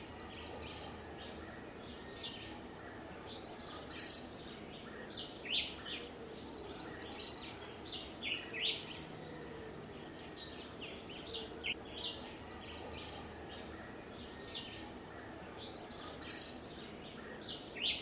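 Songbirds singing in tropical rainforest: a quick phrase of high, down-slurred chirps comes again every few seconds over a soft background hum of the forest.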